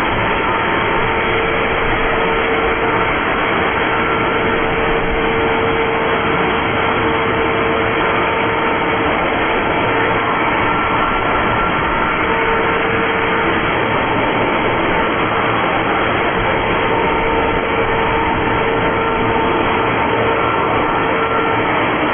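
Blower running steadily at constant speed, a whooshing rush of air with a faint motor whine that fades in and out.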